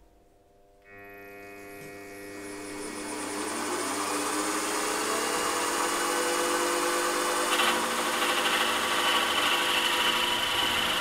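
Milling machine spindle starting about a second in with a motor whine, then a 12 mm slot drill plunging into a cast iron piston, the cutting noise building steadily; a higher-pitched cutting tone joins about three-quarters of the way through. The machinist afterwards thinks the slot drill is blunt.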